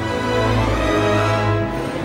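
Orchestral film score: a full orchestra plays held chords over a steady low bass note.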